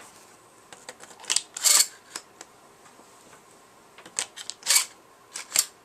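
Shotgun shells being pushed into a Mossberg 500's tube magazine, which a pencil plug limits to two shells: sharp metallic clicks and short scrapes in a few clusters a second or two apart.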